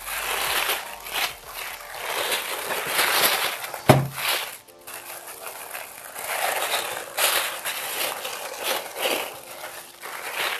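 Thin white wrapping crinkling and rustling in irregular bursts as it is unfolded from around a new keyboard, with one sharp knock about four seconds in.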